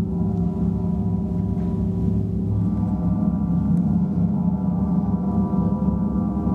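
Large gongs sounding together in a continuous gong bath: a dense, sustained wash of overlapping tones with a low throbbing pulse, the higher overtones swelling about halfway through.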